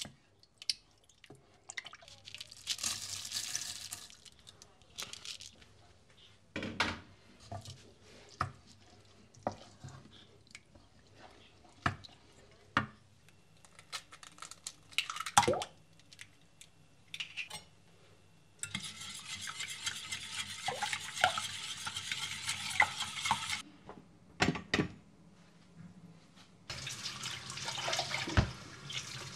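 A wooden spoon stirs and scrapes a yogurt and rice soup mixture in a stainless steel pot, with a series of sharp knocks of the spoon against the pot. About 19 seconds in, a kitchen tap runs for about five seconds, and it starts running again near the end.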